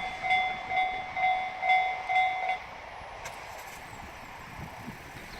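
Japanese railway level crossing warning bell ringing in a steady two-tone ding-ding, about two strikes a second, then cutting off abruptly about two and a half seconds in as the crossing clears. Strong wind on the microphone leaves a steady rushing noise underneath and afterwards.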